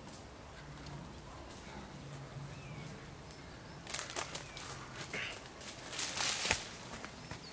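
Running footsteps crashing and crackling through forest undergrowth. They start about halfway through and are loudest near the end as the runner passes close. Before them, a few faint bird chirps.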